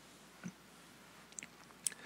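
A few faint, short clicks and a small soft blip over quiet room tone.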